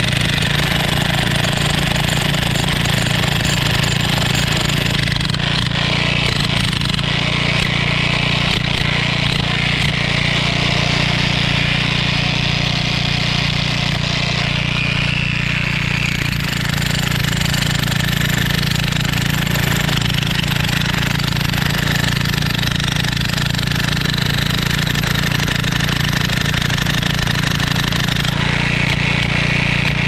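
Toolman LT5105 electric jackhammer running steadily, its chisel hammering and breaking concrete.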